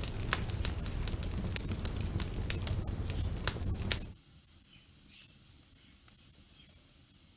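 Wood fire crackling in a fireplace, with frequent sharp pops and snaps over a low rumble of the flames. About four seconds in, the sound cuts out abruptly to a faint hiss with a few soft ticks.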